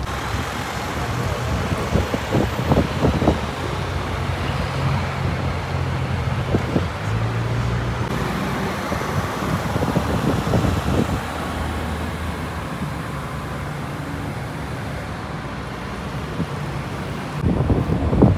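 Car engines running in street traffic: a low engine note that steps up and down in pitch now and then, over steady road noise.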